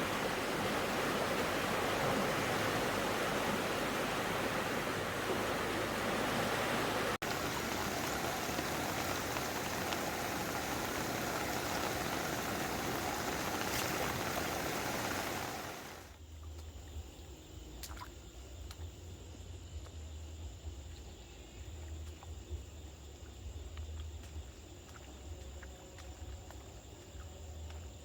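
Loud, steady rushing of water. About sixteen seconds in it cuts suddenly to a much quieter background: a low rumble under one steady high-pitched insect tone.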